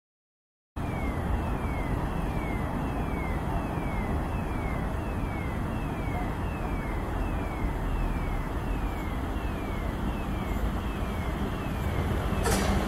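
After a brief dead silence, steady station rumble of electric trains, with a regular high falling electronic beep repeating about every two-thirds of a second. Near the end the rumble grows louder as a South Western Railway Class 444 electric unit approaches.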